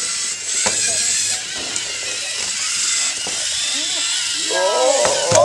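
Lego EV3 servo motors whirring as two sumo robots drive and push against each other, under background voices that grow louder near the end.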